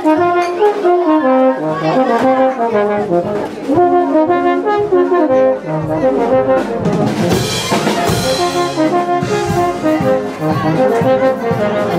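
Brass band playing a tune, trumpets and trombones carrying the melody, with a short noisy burst about seven seconds in.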